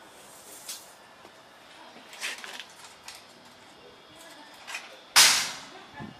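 The fold-up ramp of a scooter carrier rack being lifted, with scattered knocks and clanks and one loud bang about five seconds in that rings briefly.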